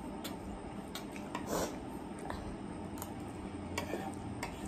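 Eating sounds: scattered light clicks of chopsticks and a spoon against plates, with a brief slurp of noodles about a second and a half in.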